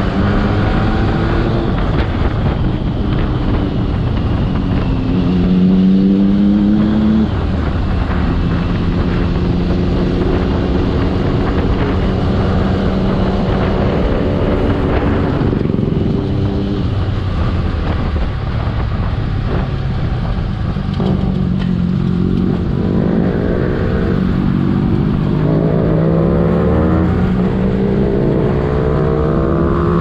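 Triumph Daytona 675's inline three-cylinder engine under way, its pitch climbing in several runs and dropping back between them as the bike accelerates and shifts up through the gears.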